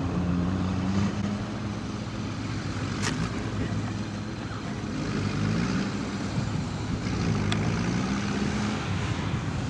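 Diesel engine of a Sherp amphibious ATV running, its pitch rising and falling as it is driven over river ice and water. Two sharp clicks cut through, about three seconds in and again near the end.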